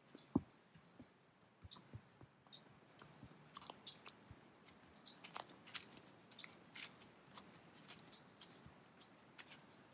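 Faint, irregular clicks and soft knocks from a horse walking under a rider, with one sharper knock about half a second in.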